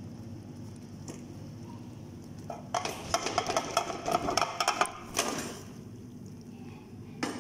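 Metal kitchen utensils clattering and scraping against a cooking pot in a dense run of clinks lasting about two seconds, starting about a third of the way in. A shorter clatter follows, and there is a single sharp clink near the end.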